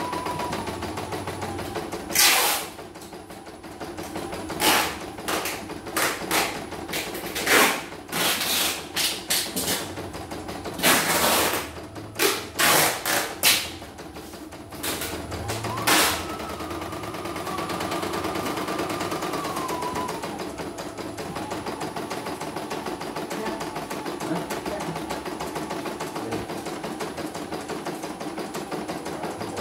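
CNY computerized embroidery machine stitching a test design, its needle running in a fast, steady rhythm. Between about 2 and 16 seconds a string of loud, sharp knocks breaks in, and a whine holds for a few seconds after that.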